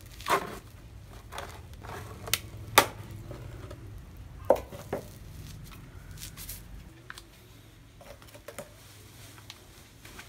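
A plastic trash bin being gripped, shifted and turned by hand on sandy ground: a handful of sharp knocks and taps, the loudest about three seconds in, then quieter handling.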